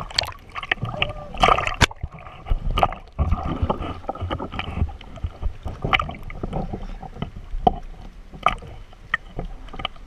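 Seawater sloshing and splashing around a GoPro held at the surface, with irregular sharp knocks and clicks of water against the camera.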